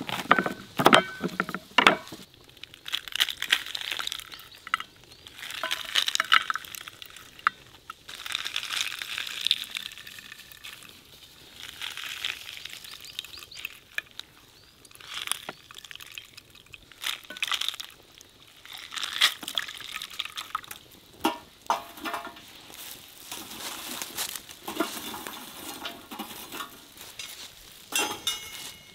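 A knife cutting through pomegranates, then pomegranate juice and seeds splashing into a metal pan in short, repeated bursts.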